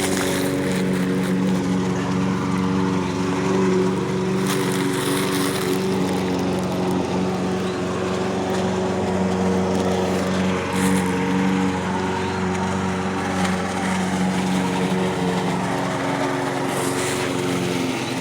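A small engine running steadily at a constant speed, with a few short hissy noises on top.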